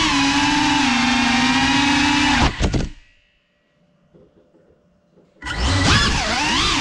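FPV quadcopter's brushless motors whining steadily, then cutting off about two and a half seconds in, leaving near silence. About five and a half seconds in they spin back up, the pitch swinging up and down as the throttle changes before settling into a steady whine.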